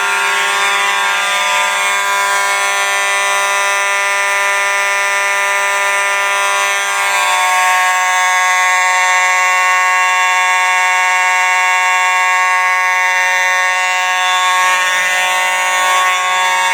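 Simplex 4903-series fire alarm horns sounding a steady, continuous buzzing horn tone with no pauses.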